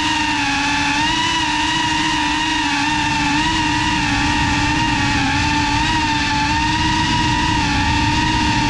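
Motors and propellers of a GEPRC Cinelog35 3.5-inch ducted FPV quadcopter whining at a steady pitch that wavers slightly with throttle, over a rush of prop wash.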